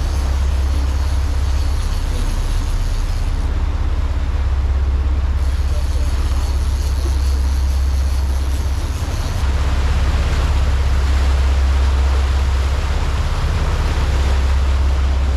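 Charter fishing boat's engines running steadily underway, a loud low drone under a constant rushing hiss.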